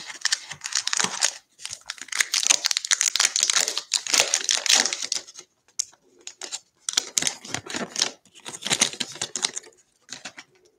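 Plastic-foil wrapper of a 2020 Bowman baseball card pack being pulled out, torn open and crinkled: two long stretches of crackling rustle with a pause of about two seconds between them.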